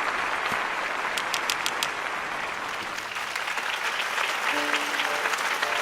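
Audience applauding steadily; a few held musical notes come in about four and a half seconds in.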